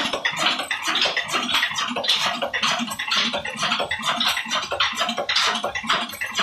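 Old Ruston Hornsby single-cylinder stationary diesel engine running, its big flywheel and flat drive belt spinning, with a steady, rapid, uneven mechanical clatter.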